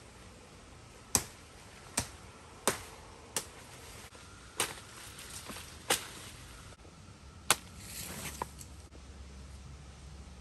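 A blade whacking green wood: about seven sharp chops at uneven intervals as side branches are lopped off a sapling being trimmed into a cane pole.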